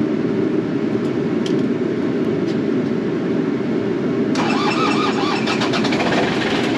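Takeuchi excavator's diesel engine cranking over on a weak battery, a steady low churning. About four seconds in, a louder, harsher rattle with a faint wavering squeal joins it.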